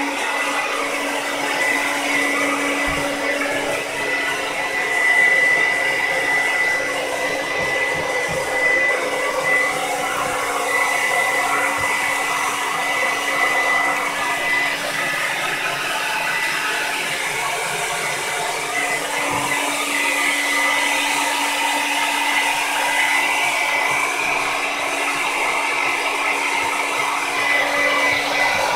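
Handheld hair dryer running steadily on high while blow-drying a wet dog, a constant rush of air with a steady hum and whine.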